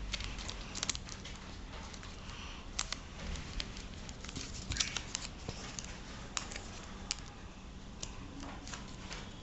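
Square sheet of paper being folded and creased by hand into an origami bird base: scattered paper crinkles and soft taps.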